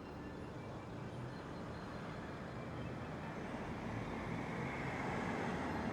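City street traffic: a steady wash of road and engine noise that grows gradually louder.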